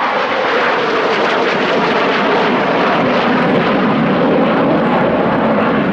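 Steady jet noise from a formation of three Panavia Tornados, each powered by two RB199 turbofans, flying past. Its pitch sinks slowly as the jets draw away.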